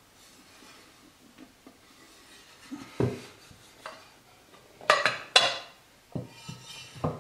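Metal instrument enclosure being handled: a knock about 3 s in as the box is set down, two sharp metallic clanks with a brief ring around 5 s as the lid is lifted off, then a few lighter knocks near the end.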